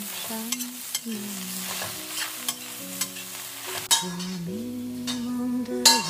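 Eggs and red onion sizzling in a stainless steel wok, stirred and scraped with a metal spatula, over background music with a melody. The frying sound fades after about four seconds, and a sharp clank comes near the end.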